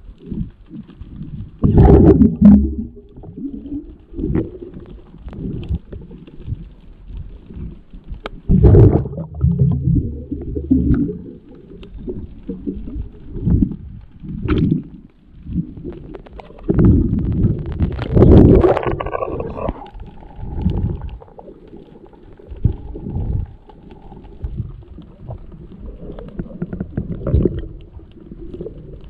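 Muffled underwater noise of water moving around the camera, coming in irregular surges, loudest about two seconds in, around nine seconds, and again a little past the middle.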